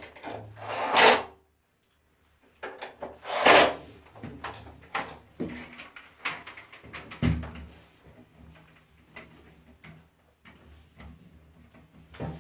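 Plastic parts of a wall-mounted air conditioner being handled during disassembly: irregular clicks, knocks and rattles, with two louder clattering bursts about a second in and about three and a half seconds in.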